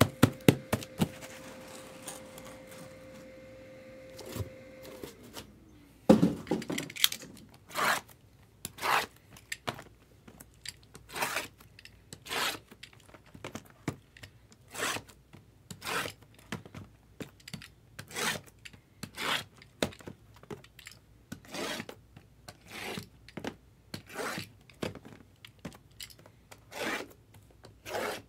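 Cardboard boxes and packaging handled by hand: a run of short rubbing, scraping strokes, roughly one a second.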